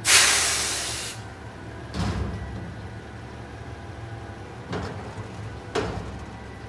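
Mack front-loader garbage truck idling while bulky trash is thrown into the steel container on its forks: a loud crash at the start that fades over about a second, then smaller knocks about two, five and six seconds in.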